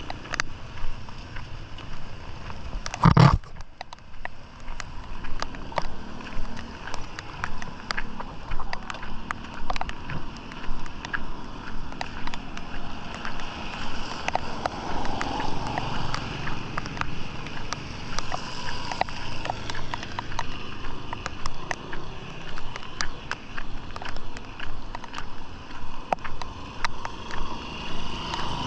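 Heavy rain, with many sharp drop hits close by and splashing in an uneven pulse about twice a second, typical of wading through floodwater. One loud thump comes about three seconds in.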